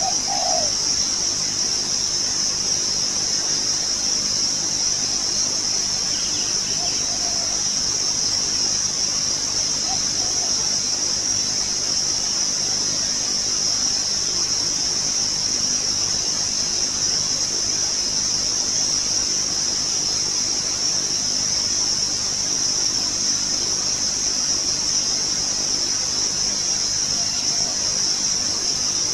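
Steady, high-pitched insect drone of crickets or cicadas, with a few faint short low dove coos at the very start and again now and then.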